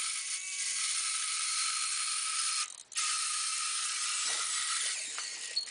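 Small electric motor of an RC4WD 9.5 Warn scale winch running with a high whirring, ratchet-like buzz, cutting out briefly about halfway through and then starting again. The winch is stopping intermittently, which the owner puts down to a bad spot in the motor.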